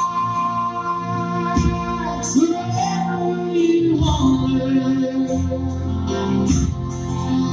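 Music with a singing voice over sustained low notes.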